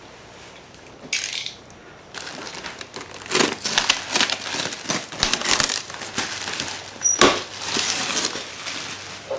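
Bubble wrap and plastic packaging being handled and pulled off, with a dense run of crinkling and rustling from about two seconds in and a sharp click a little after seven seconds.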